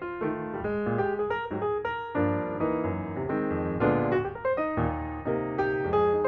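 Background piano music: a melody of quick single notes over sustained chords.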